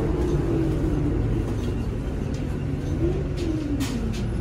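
Low drone of a NovaBus LFS CNG city bus running, heard inside the cabin, with the Cummins L9N natural-gas engine and drivetrain underneath. A whine rises and falls twice, and a few short clicks come near the end.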